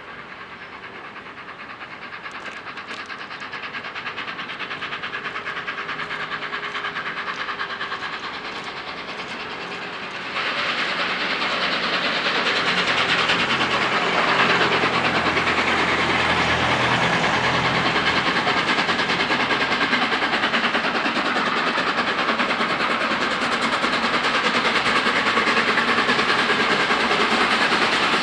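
Steam locomotive 60163 Tornado, a three-cylinder Peppercorn A1 Pacific, approaching with its train under steam, growing louder as it comes. About ten seconds in, the sound suddenly steps up in loudness and then holds.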